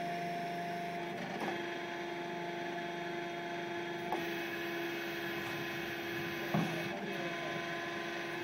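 Palfinger loader crane's hydraulic drive running with a steady whining hum as the boom swings the grab bucket of manure; the pitch of the whine drops about a second in as the load changes. Three short knocks from the boom and grab come through it, the last, about six and a half seconds in, the loudest.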